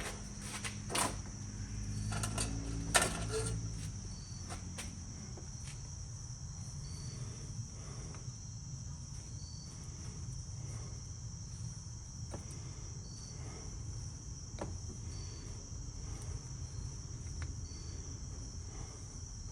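Crickets chirping steadily in a high trill, with a few sharp clicks and handling noises in the first few seconds.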